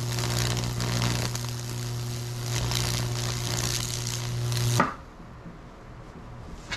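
Microwave oven transformer in a Lichtenberg fractal burner humming deeply while high-voltage arcs crackle and sizzle across wood soaked in baking soda solution. The power cuts off with a click about five seconds in, and the hum and crackling stop together.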